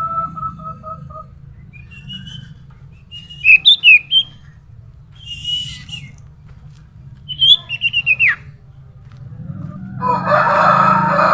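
Common iora (cipoh) calling: sharp, loud chirps and a whistle that falls steeply in pitch, over a low steady hum. A held two-note call trails off just at the start, and a loud, rough sound begins near the end.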